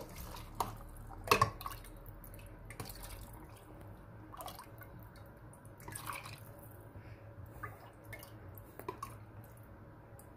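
Liquid dripping in a kitchen, a few scattered drops and light ticks spread out over a low steady hum.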